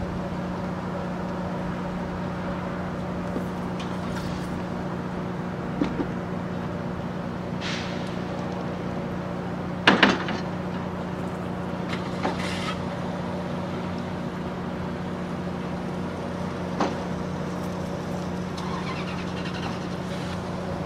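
Northstar commuter train standing at the platform with a steady hum from its idling equipment. About halfway through comes a sharp metal clank as the crew member lays the wheelchair boarding plate at the coach doorway, with a few lighter knocks before and after.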